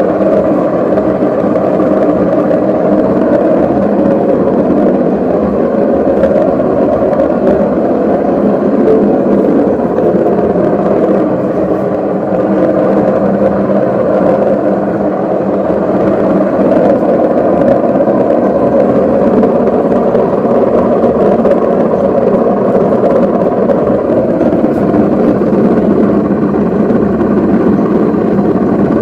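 Washing machine drum turning with a loud, steady bearing noise, the sign of a worn drum bearing.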